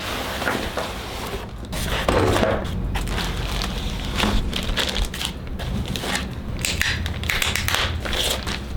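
Unboxing handling noise: a cardboard box and foam packing inserts being pulled about, with scraping, rustling and knocks, then plastic wrap crinkling as it is peeled off a laptop near the end.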